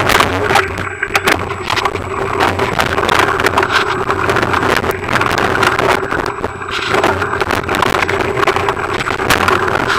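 Bicycle rolling fast down a rocky, wet dirt trail: tyres crunching over loose stones, the bike and camera mount rattling with many sharp knocks, and a rush of wind on the microphone, with a steady buzz underneath.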